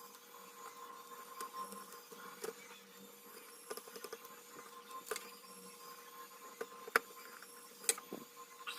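Scattered light clicks and taps from handling small parts of a mini amplifier under repair, the loudest about 7 s in, over a faint steady electrical whine.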